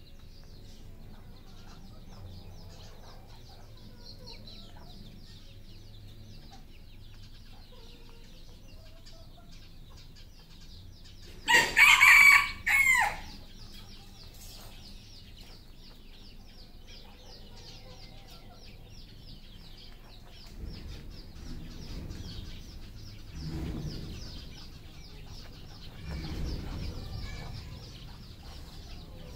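A red junglefowl rooster crows once, about twelve seconds in: a short, broken crow. A steady high-pitched chirring runs underneath, and low rumbling comes in over the last several seconds.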